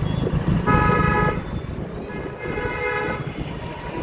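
A vehicle horn honking in two steady blasts of about a second each, the first about a second in and the second a little past the middle, over a continuous low rumble of engine and road noise.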